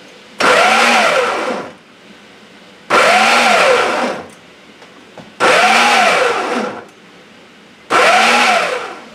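Ninja food processor pulsed four times, chopping peppers, onions and garlic. Each pulse lasts just over a second, and the motor's pitch rises as it spins up and falls as it winds down. The pulses come about two and a half seconds apart.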